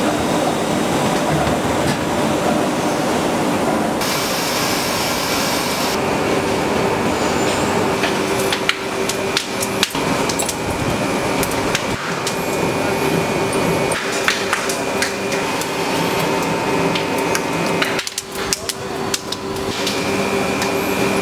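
Rubber-processing factory machinery running with a steady hum and whine, broken by scattered metallic clanks and knocks; the sound changes abruptly several times.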